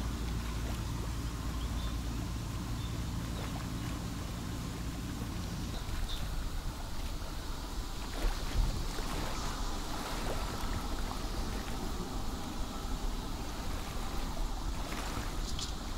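Waterside ambience: wind rumbling on the microphone, heaviest for the first six seconds or so, over a steady hiss of gently moving water.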